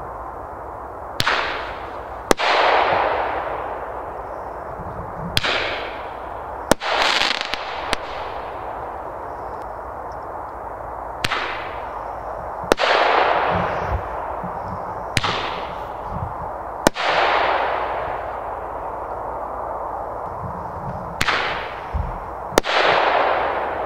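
Twin-shot roman candles firing: sharp reports in five pairs, the two in each pair about a second and a half apart, each report trailing off in a fading rush. A steady background noise runs underneath.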